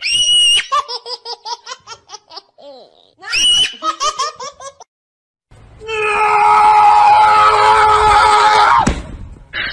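A person laughing hard in quick, high-pitched bursts, opening with a shriek and breaking out again a few seconds in. After a short gap comes a loud steady held tone over a hiss, lasting about three seconds, which cuts off suddenly.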